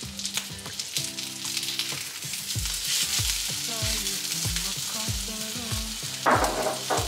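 Breaded chicken goujons sizzling as they fry in a non-stick pan, moved about with tongs. Background music with a steady beat comes in about two and a half seconds in.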